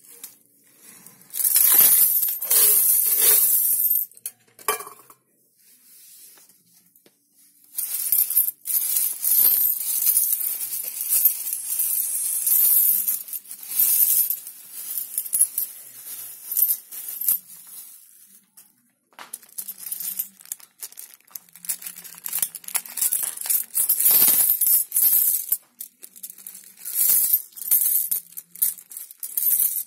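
Coins tipped out of a tin and a plastic bag onto a tile floor, clinking and jingling, with the plastic bag crinkling, in several bursts a few seconds long with short pauses between.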